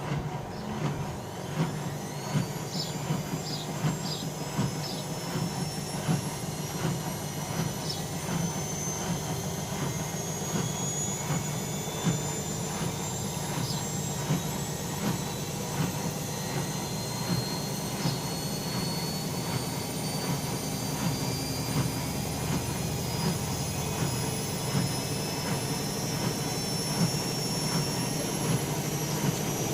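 Bauknecht Dynamic WA 1460 Sports washing machine running up into a spin: the drum motor's whine rises slowly and steadily in pitch over a low hum, with a regular run of light knocks.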